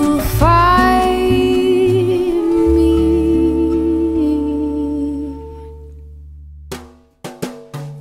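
Background music: a song with singing and drums that fades out over the last few seconds. A few sharp clicks fall in the short gap before the next song starts.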